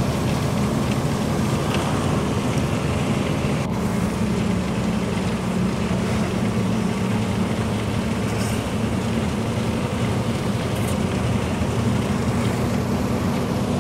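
A vehicle driving at steady speed on a highway: a constant low engine and road drone with tyre and wind noise, unchanged throughout.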